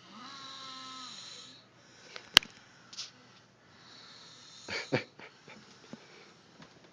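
Snoring: a wheezy, pitched snore breath in the first second and a half, and another noisier one around four to five seconds in. A sharp click sounds about two and a half seconds in, with a fainter one just after.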